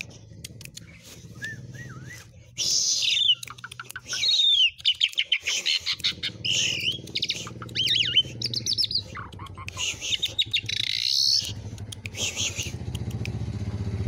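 Asian pied starling singing a varied, loud song of whistles, up-and-down glides, rapid trills and harsh raspy bursts, the mimicked sounds of a well-filled song. A low steady hum runs underneath.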